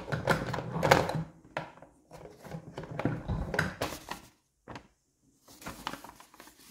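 Hard plastic toy playset pieces being handled and fitted together: a string of short clicks, taps and knocks with some rustling, falling briefly quiet a little past the middle.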